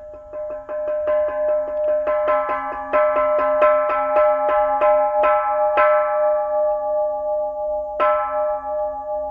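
Kanshō, a small bronze Japanese temple bell, struck with a wooden mallet in a roll of quick, light strokes that grow louder and slower, then, after a pause, one strong stroke near the end; the bell rings on steadily between strokes. This roll is rung to signal the start of a temple service.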